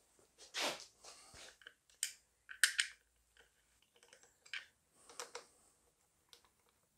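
Hands handling metal parts and a screwdriver while fitting an outboard's carburettor to its mounting bolts: a rustle, then scattered sharp clicks and taps, the loudest two to three seconds in and again about five seconds in.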